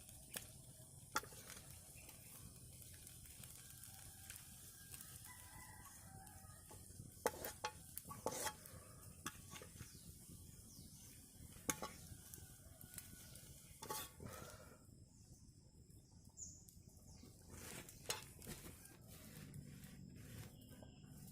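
Pumpkin being cooked in a pan: faint sizzling with scattered sharp clicks and knocks of a utensil stirring against the pan, a few of them louder.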